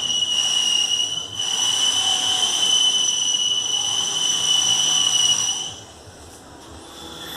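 A power tool running with a high steady whine in two runs: a short one, a brief break, then a longer run that stops about six seconds in.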